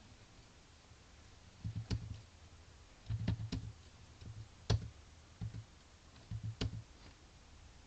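Computer keyboard keys pressed a few at a time, in short scattered groups with pauses between them, as numbers are typed in.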